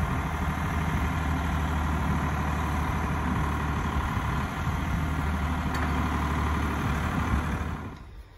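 Backhoe loader's engine running steadily as the machine works its backhoe arm. The engine sound drops away sharply near the end.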